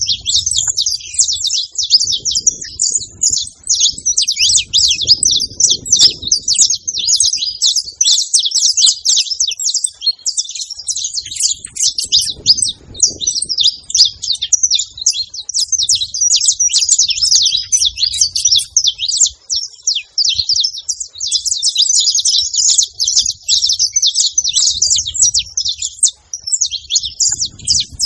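Several saffron finches singing together: a dense, nearly unbroken stream of quick, high chirps and trills, easing off briefly twice.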